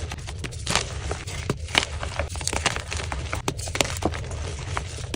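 Dyed gym chalk being crushed and crumbled: a fast, irregular run of sharp crunches and crackles over a steady low hum.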